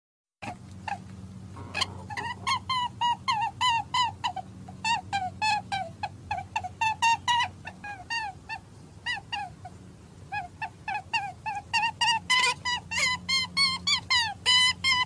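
Rapid series of short, high, squeaky animal calls, several a second, over a steady low hum. The calls start about half a second in.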